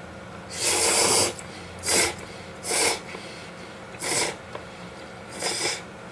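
A man slurping cold Chinese-style noodles (hiyashi chuka) off chopsticks: five airy slurps. The first, about half a second in, is the longest and loudest, and four shorter ones follow roughly every second and a half.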